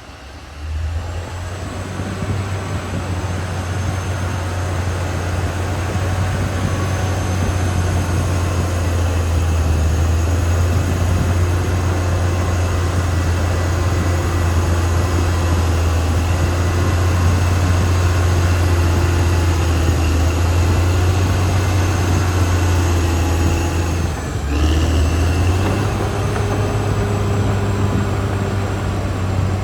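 Caterpillar D6R XL bulldozer's diesel engine running steadily under load, with a thin high whine above the low engine note. The sound starts just after the opening, grows louder over the first several seconds, and dips briefly about three-quarters of the way through before picking up again.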